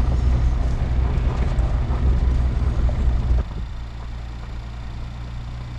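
Car engine and tyre noise heard from inside the cabin while driving slowly: a steady low rumble with road noise over it. The sound drops noticeably about three and a half seconds in and runs on more quietly.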